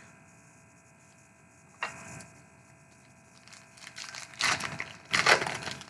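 Trading cards being handled on a table: a single knock a little under two seconds in, then a run of irregular rustling and crinkling over the last two seconds.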